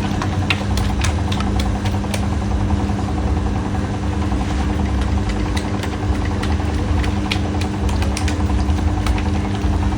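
A motor running at a steady hum, with scattered clicks and clatter over it.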